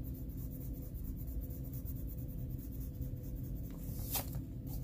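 Colored pencil scratching on a coloring-book page while small white spots are filled in with dark brown. Near the end come two short, sharp clicks.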